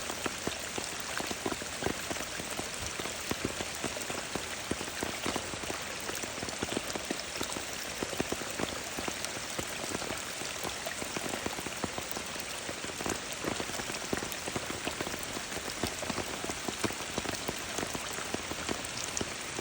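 Rainwater runoff running and spattering: a steady, dense patter of many small drops over an even watery hiss.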